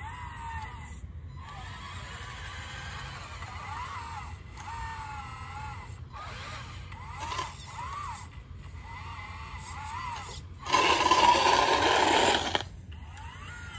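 Motors of a 1:14 scale RC Caterpillar 988 wheel loader model whining, the pitch rising and falling in short spells with brief pauses between them. Near the end a much louder rushing noise lasts about two seconds, then stops suddenly.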